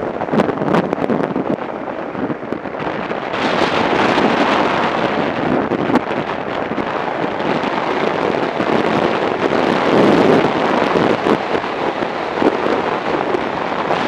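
Wind buffeting the microphone of a motorcycle at road speed, mixed with the bike's running and road noise. The rush grows louder about three seconds in.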